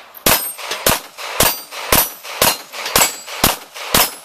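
Pistol fired in quick succession at a steel plate rack: eight shots about half a second apart, with the metallic clang of steel plates being hit.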